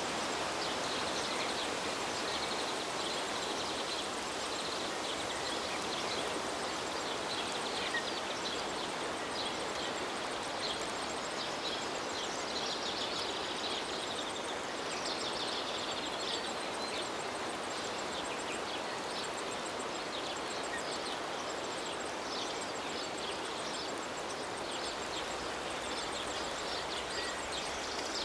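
River water flowing steadily, with many short, high bird chirps scattered over it.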